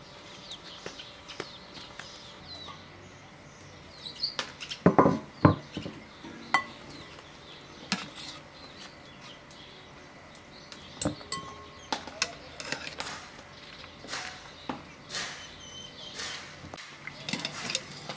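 Aluminium cooking pots knocking and clanking, a cluster of loud clunks about five seconds in, then a metal skimmer ladle clinking and scraping against the pot as boiled meat is lifted out. Faint bird chirps run underneath.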